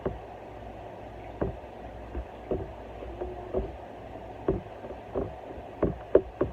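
Irregular knocks and clatter of a spoon against a cooking pot, roughly one every half second to a second, over a low steady hum.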